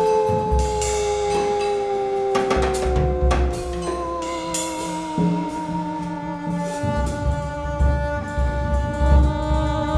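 Free-improvised music on bowed double bass and drum kit: long tones gliding slowly downward in pitch over a low rumbling bass, with scattered drum and cymbal strikes.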